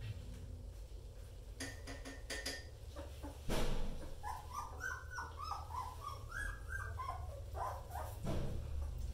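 Young German Shepherd puppy crying in a run of short, high whimpering yelps as it is lifted out of the whelping box. A single loud knock comes about three and a half seconds in.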